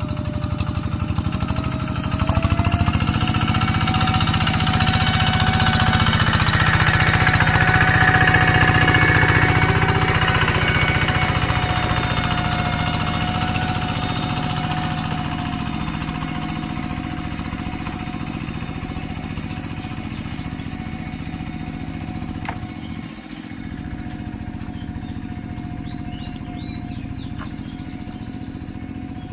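Rice-paddy tractor engine running hard at full throttle without letup. It grows louder about two seconds in, is loudest around eight seconds, then eases slightly, with a single knock later on.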